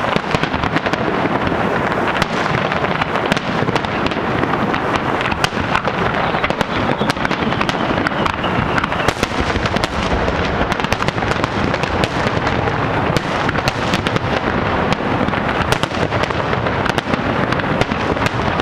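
A fireworks display: a dense, continuous barrage of bangs and crackling cracks, with no gaps.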